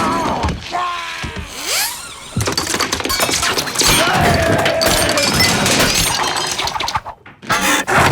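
A long, loud crash of things breaking and shattering, starting about two seconds in and lasting several seconds, with a man yelling over it.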